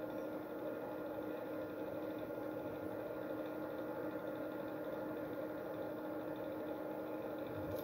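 Steady electrical hum and hiss from running bench electronics, with a short click at the very end.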